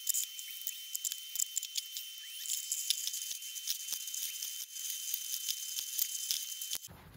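Tap water running into a sink while dishes and glasses are washed by hand and set in a stainless steel dish rack, with frequent sharp clinks of ceramic and glass over the steady hiss of the water. The sound is thin, with no low end, and cuts off abruptly just before the end.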